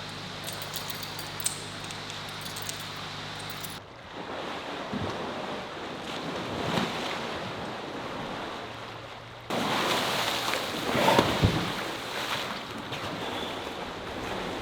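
Water sloshing and splashing in a dolphin pool, over a few edited shots. A steady low hum runs under the first few seconds, and the water gets louder for a few seconds after a cut about ten seconds in.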